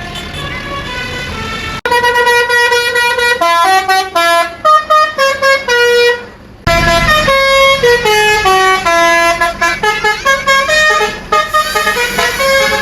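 Basuri 'telolet' multi-tone horn on a tour bus playing a tune of quick stepped notes. It starts softer and comes in much louder about two seconds in, breaks off briefly near the middle, then plays falling runs of notes.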